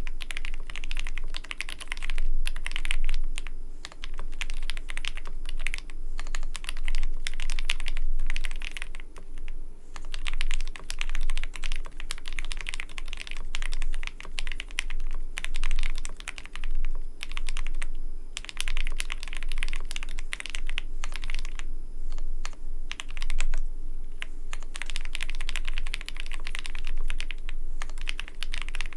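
Fast typing on a custom mechanical keyboard: a dense run of key clicks that comes in bursts of a few seconds with brief pauses between them.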